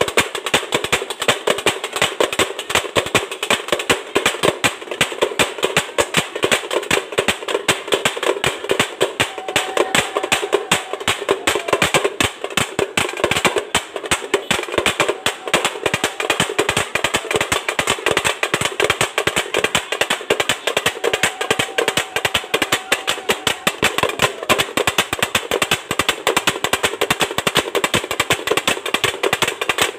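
Drums beaten in a fast, dense, unbroken rhythm, many strikes a second.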